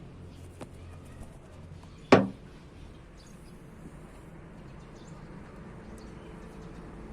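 A single sharp knock about two seconds in, dying away quickly, over a low steady background with a few faint clicks.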